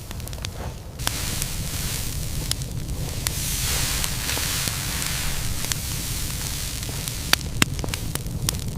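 Fire crackling, with scattered sharp pops over a steady hiss and a low rumble; the hiss thickens about a second in, and two louder pops come near the end.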